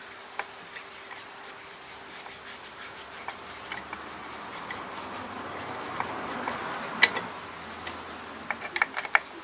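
Handling noise of the assembled rifle and stock: a rubbing, scraping sound that swells in the middle, with scattered clicks, a sharp louder click about seven seconds in and a quick run of clicks near the end.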